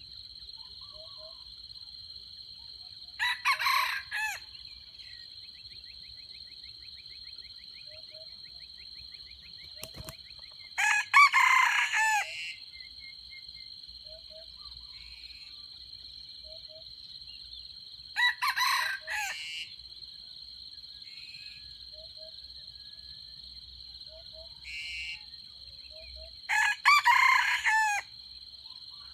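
A junglefowl rooster crowing four times, short crows about seven seconds apart, over a steady high-pitched drone of insects.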